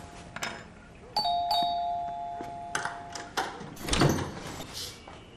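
Electric flat doorbell ringing in a steady two-note buzz, briefly and then held for about two seconds. About four seconds in comes a thud with clicks as the door is unlocked and opened.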